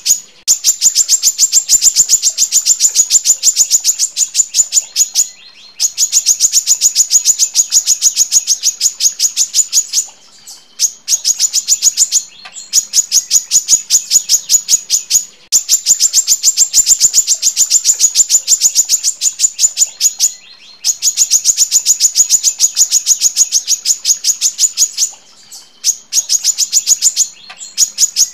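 Female brown-throated sunbird (kolibri kelapa) calling in long, tightly packed runs of rapid, high, sharp notes, about eight a second. Each run lasts a few seconds, with brief pauses between the runs.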